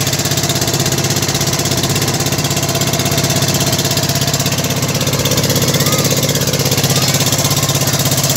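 Inboard engine of a motorised outrigger boat (bangka) running steadily under way, a loud, fast, even beat with no change in speed.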